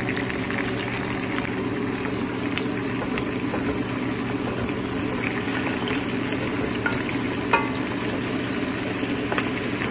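Pork belly and tomatoes sizzling in oil in a stainless steel pan while being sautéed and stirred with a wooden spatula, with a few light clicks of the spatula against the pan and one sharper tap about seven and a half seconds in. A steady low hum runs underneath.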